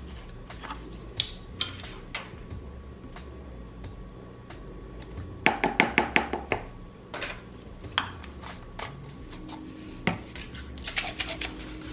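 Light clicks and taps of a plastic measuring spoon, flavoring bottle and cap being handled over a plastic measuring cup of powdered sugar, with a quick run of about eight taps about halfway through, like a spoon knocked against the cup.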